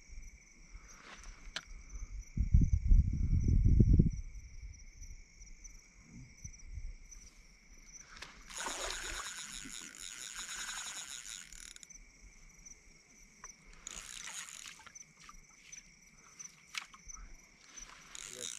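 Crickets chirp steadily at night. Between about two and a half and four seconds in comes a loud low rumble, the loudest sound here. From about eight and a half to twelve seconds in there is a rasping noise made of rapid ticks, with a shorter burst near fourteen seconds.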